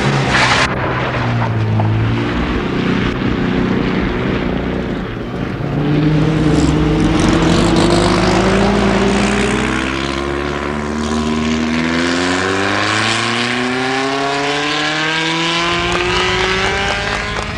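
Rally car engine running hard, its pitch climbing slowly and steadily through the second half as the car accelerates.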